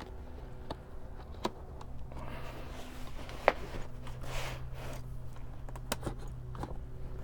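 Car seat upholstery cover being worked back onto the seat-back frame by hand: rustling of the cover with scattered light clicks and knocks, the sharpest about three and a half seconds in, over a steady low hum.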